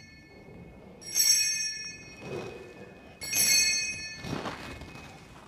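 Altar bell rung twice, about a second in and again about three seconds in, each ring shimmering high and dying away over about a second: the bell that marks the elevation of the chalice at the consecration.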